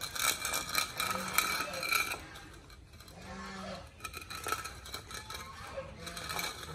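Puppies' metal food bowls clinking and rattling on concrete as the pups eat and push them with their muzzles, busiest in the first two seconds.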